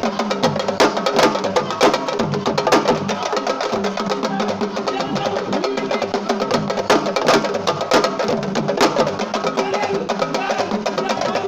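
Fast, sharp hand-drum strokes in a dense rhythm, with a crowd of voices singing and shouting over the drumming.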